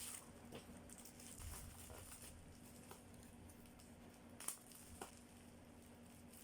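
Faint rustling and handling of packaging, with a few light clicks and taps; the sharpest click comes about four and a half seconds in.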